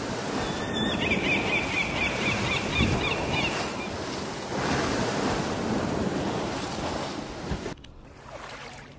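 Sea waves washing and surging, an even rushing noise, with a run of high chirps about a second in. The sound drops away abruptly about eight seconds in, leaving a much quieter background.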